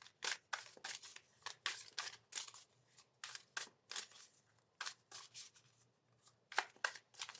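Tarot cards being handled and laid out on a table: a string of short, sharp card clicks and snaps at irregular intervals, with a brief pause a little after the middle.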